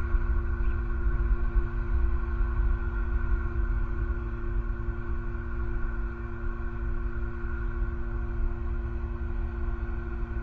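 Steady low rumble of road traffic, over a constant hum of several steady tones.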